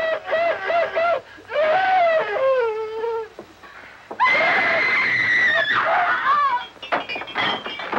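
A woman's voice in long, high, wavering shrieks: three cries, the second sliding down in pitch, the third the highest and loudest, starting about four seconds in.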